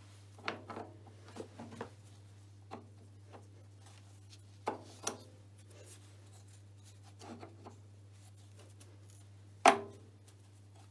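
Small metal clinks, knocks and scrapes as steel machined parts are handled on the milling machine, a dozen or so scattered taps with one sharp clank near the end, over a steady low hum.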